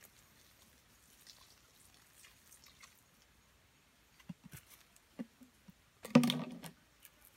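Water poured from a plastic bottle trickling and pattering onto leaf litter, faint at first. Then come a few light crunches of footsteps on dry leaves, and a louder brief scuffing rustle about six seconds in.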